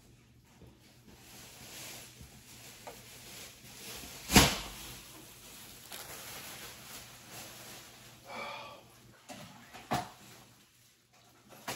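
Objects being handled and set down: a sharp knock about four seconds in, a short scrape a little after eight seconds, and a lighter knock near ten seconds, with soft handling noise between.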